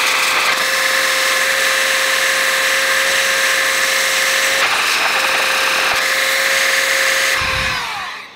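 Handheld electric air duster blowing a steady, loud stream of air with a constant high motor whine. The whine breaks off briefly about halfway, and the motor spins down with a falling pitch near the end.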